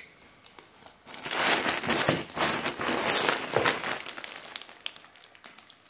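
A plastic poly mailer bag crinkling and rustling as it is handled. The crinkling starts about a second in, lasts about three seconds and then dies down to a few faint ticks.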